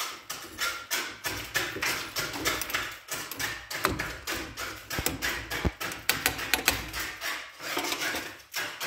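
A spoon stirring tea brewing in a stainless steel stovetop kettle, making many rapid, irregular clinks and knocks.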